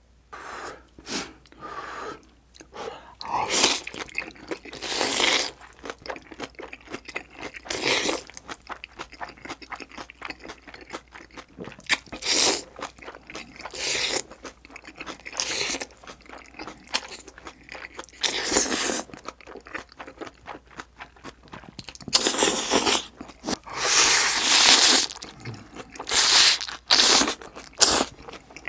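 Close-miked eating: chewy jjolmyeon noodles slurped in loud bursts every second or few, with wet chewing and smacking between.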